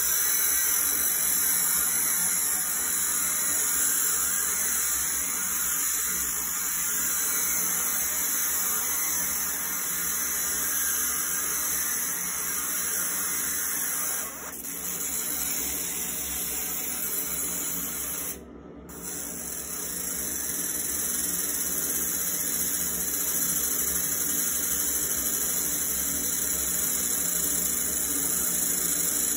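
Laser engraver ablating a steel Glock 17 slide: a steady high hiss as the beam sparks across the metal, with the fume extractor's airflow running underneath. The hiss cuts out briefly twice, about halfway through and again a few seconds later.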